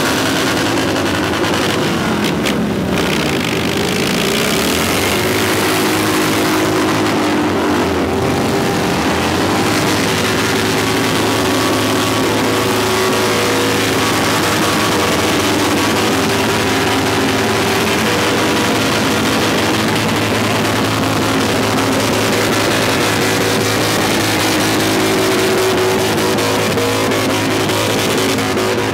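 Harley-Davidson V-twin motorcycles held at high revs during burnouts, their rear tyres spinning in place. The engines run loud and steady, with a few rises and falls in revs in the first few seconds.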